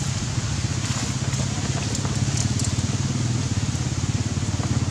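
A steady low engine rumble, like a motor running at an even idle.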